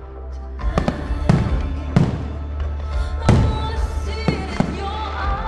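Aerial fireworks shells bursting in a series of sharp, echoing bangs, about six in all, over music played along with the display.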